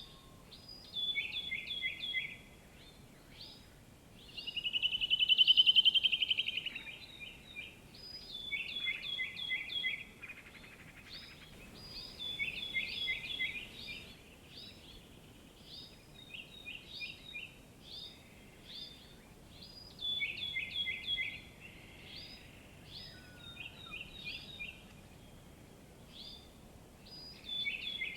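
Birdsong: short phrases of quick, downward-sliding whistled notes repeated every second or two, with a louder rapid trill about five seconds in.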